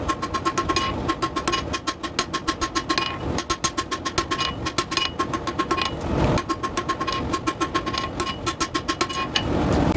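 Fast, even hammer blows on hot steel bar over an anvil, about six or seven a second, each ringing at the same pitch. The taper is being forged into the flat bar. The hammering breaks off briefly about six seconds in, and a steady rushing noise comes up near the end.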